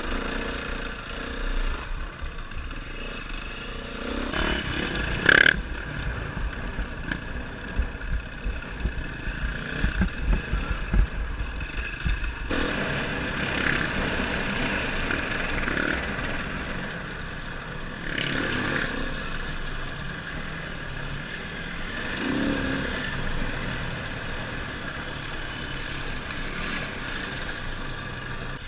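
Dirt bike engine running and revving up and down as the bike is ridden along a rough trail, heard from a camera mounted on the moving bike or rider. Several sharp knocks and rattles over bumps come in the first half.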